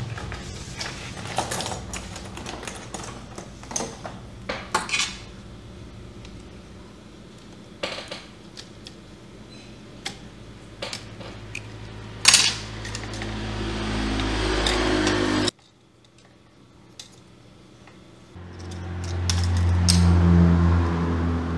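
Small metal tools clicking and tapping against a laptop motherboard, sharp taps scattered through the first half. In the second half a low electrical hum swells, cuts off suddenly, and comes back louder a few seconds later.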